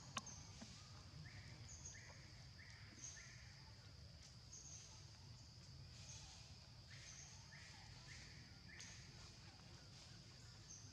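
Faint outdoor wildlife ambience: a steady high-pitched hum with two runs of four short chirps a few seconds apart, over a low rumble. There is a single sharp click just after the start.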